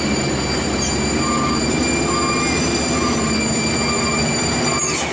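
Heavy diesel cargo trucks labouring up a steep hairpin climb: a dense engine rumble under a steady high-pitched whine.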